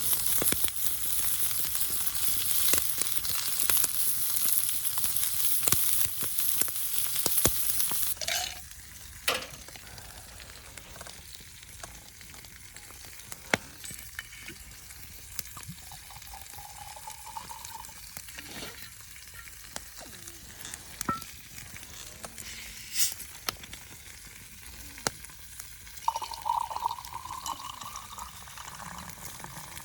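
Food sizzling in a pan over a campfire, loud for about the first eight seconds, then dropping to a quieter sizzle with scattered clicks and pops.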